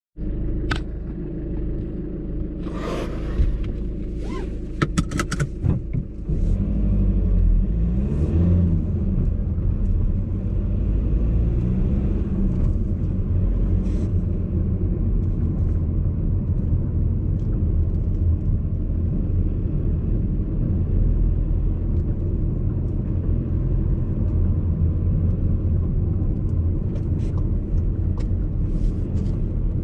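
VW Golf Alltrack driving slowly, heard from the cabin: steady low road and engine rumble, with the engine note rising and falling a few times about a third of the way in. Over it come sharp clicks and knocks, a cluster in the first few seconds and a few fainter ones near the end. This is the rattle that the owner traces to the passenger-side front suspension, which comes out over bumps and uneven road.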